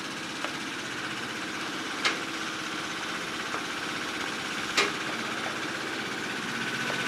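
Diesel engine of a heavy-haulage lorry tractor unit running steadily while hauling a lowloader. Two sharp knocks stand out, about two seconds in and again near five seconds, with a few fainter ticks.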